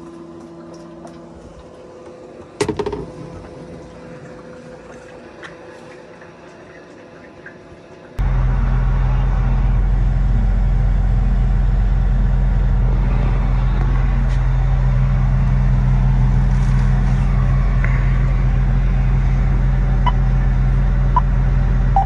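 A few quiet seconds with a single knock. Then a loud, steady, low drone of a cotton picker's diesel engine running, heard from inside the cab, comes in abruptly about eight seconds in.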